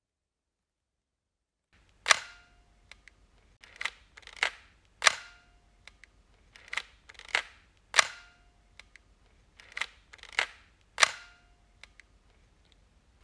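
Camera shutter clicks, sharp and short with a brief ring, coming mostly in groups of three about half a second apart, the groups about three seconds apart. Under them runs a low hum that starts about two seconds in.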